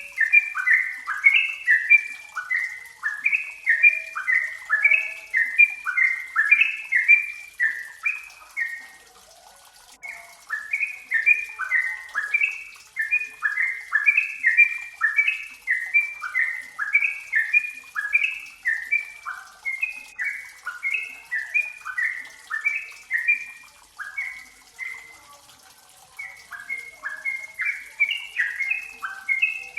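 Yellow-vented bulbul singing: rapid bubbly phrases of short falling notes, pausing briefly about nine seconds in and again about twenty-four seconds in.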